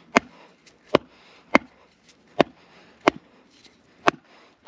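Condor Lobo machete being batoned through a spruce log: a wooden baton knocks on the blade's spine about seven times, sharp wooden strikes a little under a second apart, driving the blade down to split the wood.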